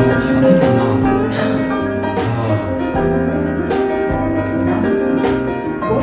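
Background music with held notes and a steady beat, playing from an exhibit video's soundtrack on a display screen.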